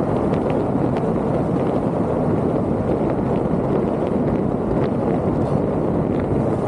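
Steady road and wind noise of a moving vehicle, with a few faint ticks.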